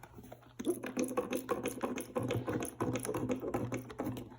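Liquid soap squeezed from a plastic bottle into a bowl, a dense, irregular run of small clicks and squelches lasting about three and a half seconds.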